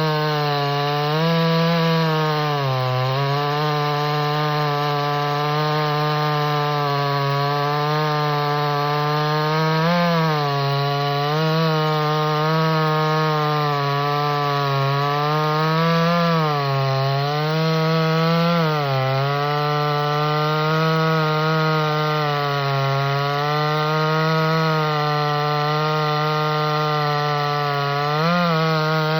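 Pinkway 63cc two-stroke chainsaw running at high revs while cutting wood; its engine pitch dips briefly under load now and then and picks back up.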